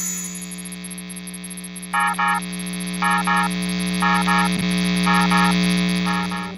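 Synthesized warning-alarm sound effect: a steady low electronic drone that swells, joined from about two seconds in by a double beep about once a second. It cuts off abruptly at the end.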